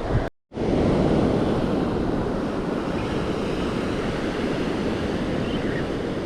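Ocean surf washing on the beach, with wind on the microphone, a steady rushing noise. The sound drops out completely for a moment just after the start, then returns at the same level.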